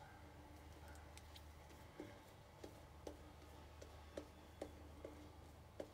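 Faint soft clicks and ticks of a two-band badger shaving brush working lather on a stubbled face, about eight of them spread over the last four seconds, over a low steady hum.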